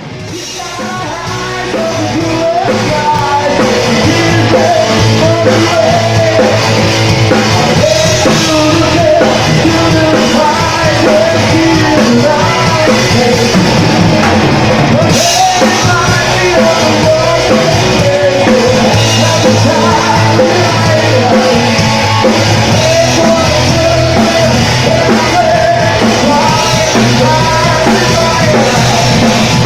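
Rock music: a band with drum kit and a lead singer, fading in over the first few seconds and then playing at a steady level.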